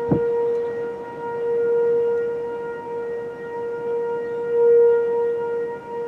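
Outdoor tornado warning siren sounding a steady, unbroken tone, its loudness swelling and fading over a few seconds. A short thump right at the start.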